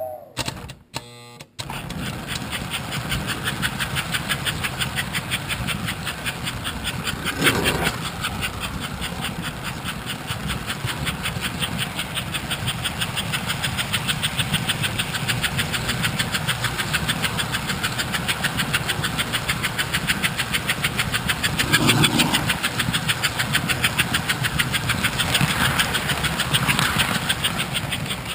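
American Flyer toy steam locomotive running along its track, its motor and wheels heard up close with a fast, even pulsing rhythm that starts about two seconds in and holds steady.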